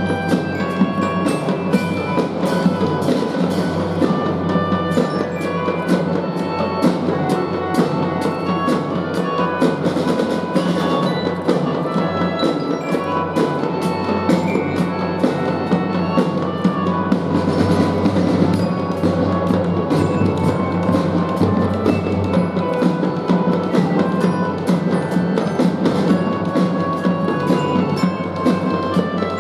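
Youth drum-and-fife corps playing: glockenspiel melody in short ringing notes over drums striking a steady, fast rhythm.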